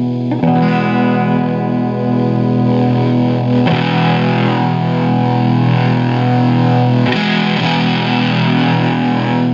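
Electric guitar played through a homemade Ultra Buzz-style fuzz pedal with its drive turned up: three chords struck a few seconds apart, each ringing on with a straightforward distorted fuzz tone.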